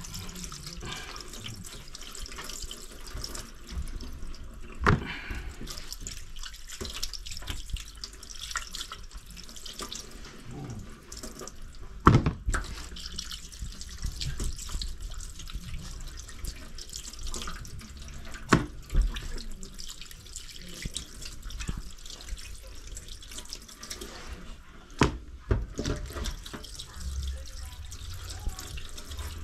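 Kitchen tap running into a stainless steel sink, the stream splashing over hands and raw pigeon breasts being rinsed under it. A few short sharp knocks break the steady water noise, the loudest about halfway through.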